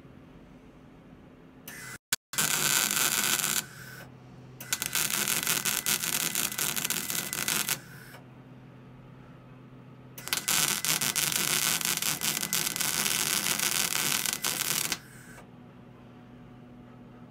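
MIG (wire-feed) welder arc crackling on steel in three bursts, the longest about five seconds, as a threaded bottom bracket shell is welded into a bicycle frame. A steady low hum from the welding machine runs between the welds.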